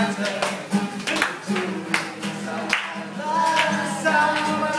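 A song with a singing voice and an acoustic guitar strummed along, with sharp rhythmic strokes.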